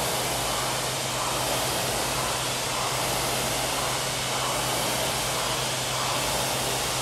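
Rowing machine's fan flywheel whirring steadily, swelling with each pull about once every second and a half.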